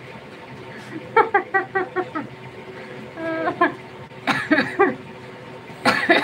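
A woman laughing in four short bouts of quick, evenly spaced 'ha-ha' pulses, several a second.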